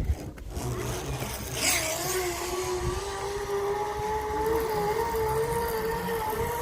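A motor running with a steady drone that slowly rises in pitch, with a brief swoosh about two seconds in.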